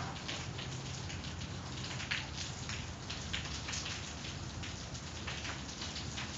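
Steady rain falling, with many separate drops hitting close to the microphone.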